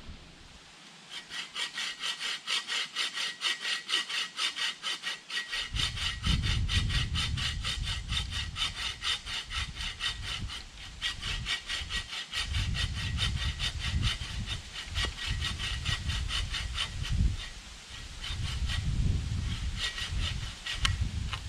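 Hand saw cutting through wood in steady, even back-and-forth strokes, starting about a second in.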